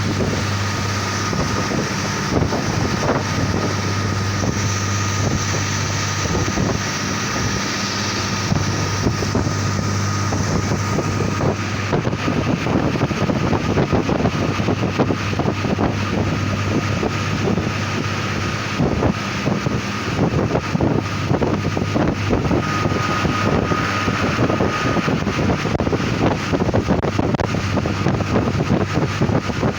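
Diesel railcar running on narrow-gauge track, heard through an open drop-down window: a steady engine drone, a dense, irregular clatter of wheels on the rails, and wind buffeting the microphone.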